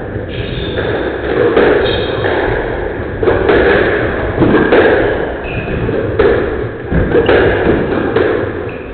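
Squash rally: the rubber ball cracking off rackets and thudding against the walls in an irregular run of sharp hits, a dozen or so, with short high squeaks of court shoes on the wooden floor.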